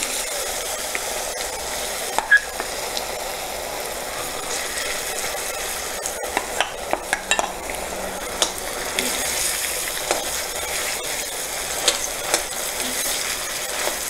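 Hot oil sizzling in an iron kadai as a lump of tamarind-and-rice-flour dough fries in a tempering of mustard seeds, dal, dried chillies and curry leaves. The scrapes and clinks of a perforated metal ladle stirring and breaking up the dough come through, more of them in the second half.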